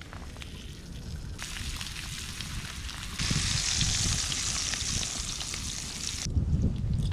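Bacon sizzling and frying in a skillet over a campfire. The sizzle grows louder about three seconds in, then drops off abruptly near the end.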